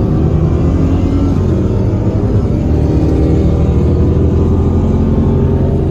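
Vehicle engine running hard under heavy throttle: a loud, steady drone.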